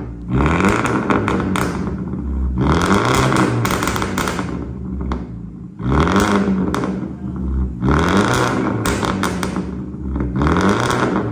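2005 BMW 116i's 1.6-litre four-cylinder petrol engine revved hard about five times, each rev falling off into a rattle of exhaust pops and crackles on the overrun, from a pops-and-bangs remap of its Bosch ME9 engine ECU.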